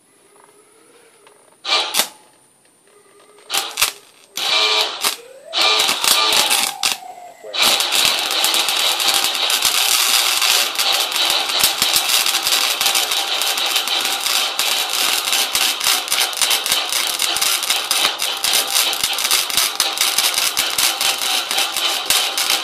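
Harbor Freight 90-amp flux-core wire welder arc: a few short starts in the first seven seconds or so, then a steady crackling weld for the rest.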